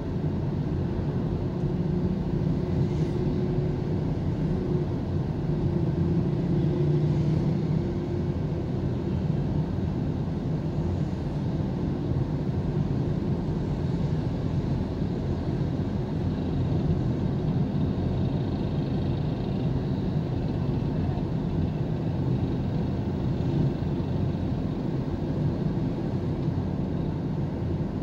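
Steady low rumble of engine and road noise heard from inside the cabin of a moving car.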